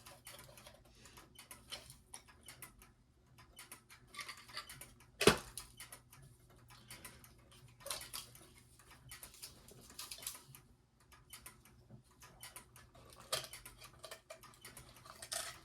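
Faint scratching, scraping and small clicks of hands prying a corroded, stuck old battery out of the battery compartment of a vintage kinetic desk toy, with one sharper click about five seconds in.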